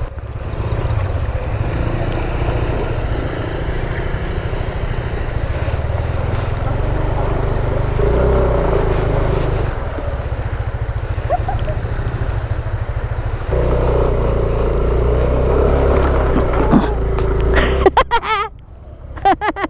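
Motorcycle engine running steadily under way, getting louder about eight seconds in and again past halfway, then dropping away near the end with a few sharp knocks.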